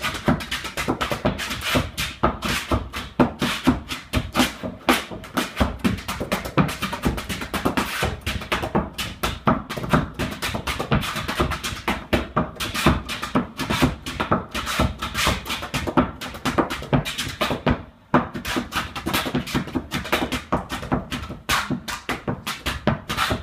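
Fast percussive flat-footing steps: hard-soled shoes striking a dance board in rapid, many-a-second taps and stamps, with a brief break about three quarters of the way through.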